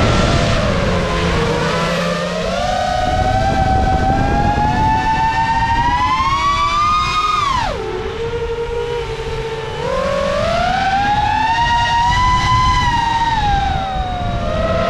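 FPV racing quadcopter's brushless motors and propellers whining in flight, the pitch gliding up and down with throttle. About halfway through the whine drops sharply as the quad rolls over, stays low for about two seconds, then climbs again and eases off near the end. A rush of wind noise runs underneath.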